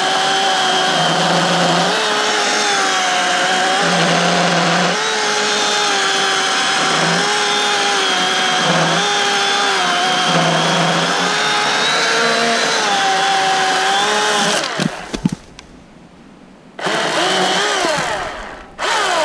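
Milwaukee M18 Fuel brushless cordless chainsaw cutting through a log, its electric whine sagging in pitch and recovering again and again as the chain bites under load. It cuts off about fifteen seconds in, then the trigger is pulled for two short runs near the end, the last one winding down.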